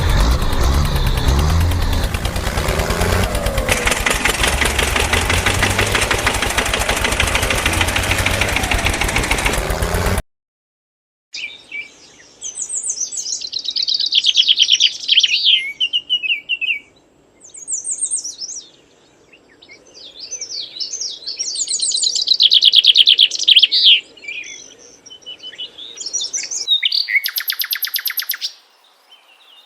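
Loud, steady motor-engine running noise with a low pulsing beat, which cuts off abruptly about ten seconds in. After a short silence, birds chirp and trill in repeated phrases over a faint low hum.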